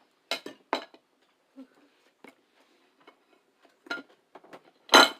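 Eating utensils clinking against dishes: a few separate sharp clicks, the loudest near the end.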